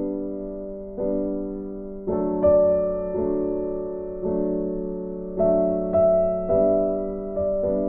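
Background music: slow, soft piano or electric-piano chords struck about once a second, each fading before the next.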